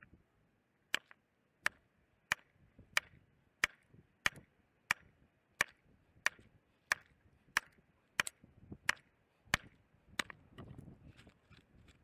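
Sledgehammer striking a concrete curb around a partly cored hole, about fifteen sharp blows at a steady pace of roughly three every two seconds, breaking out the concrete that the core bit could not get through because of rebar. After the last blow, loose concrete rubble crunches and scrapes as it is pulled away by hand.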